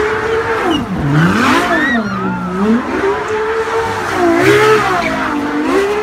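Supercar engine revving hard, its pitch rising and falling again and again, while the tyres squeal through a smoky burnout.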